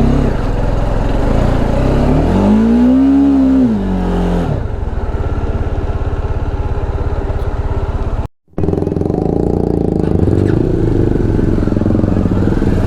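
Off-road 4x4 vehicle engine running, revved up once and back down a couple of seconds in, then running steadily. The sound cuts out completely for a moment a little past the middle.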